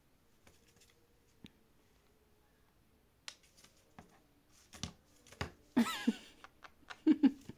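Green-cheeked conure moving on a hard shelf while it lunges at a hand: sharp clicks and taps of claws and beak, sparse at first and busier from about three seconds in. Brief harsh vocal sounds come near the end.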